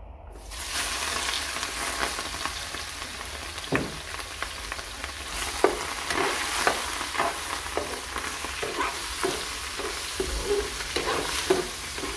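Raw shrimp tipped into hot olive oil in a frying pan start sizzling suddenly about half a second in and keep frying steadily. From about four seconds in, a spatula stirs them, with repeated short clicks and scrapes against the pan.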